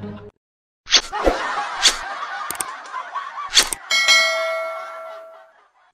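A few sharp clicks, then a bell-like ding that rings out and fades over about a second and a half: the click-and-bell sound effect of a subscribe-button animation.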